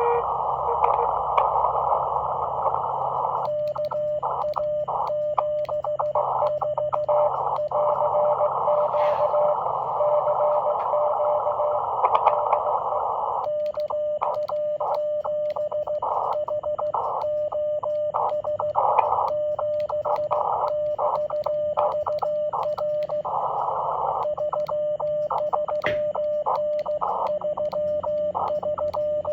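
Morse code from a ham radio transceiver's speaker: a mid-pitched tone keyed in rapid dots and dashes over the hiss of the radio's narrow CW passband, the hiss dropping out under each element. The first few seconds are hiss alone, and the keying pauses briefly about halfway and again near the end.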